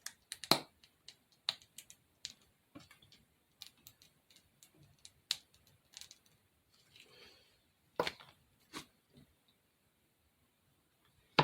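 Scattered light clicks and taps of small craft items and tools being handled on a tabletop, irregular and with quiet gaps between them.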